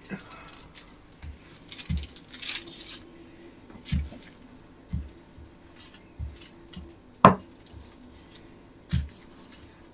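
Kitchen worktop handling sounds while pizza toppings are laid out: scattered soft knocks of dishes and utensils, a brief rustle about two seconds in, and one sharp clink a little after seven seconds.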